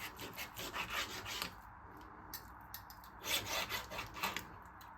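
Kitchen knife sawing back and forth through a raw beef rump steak, cutting it into strips: repeated rasping strokes in two spells with a short pause between.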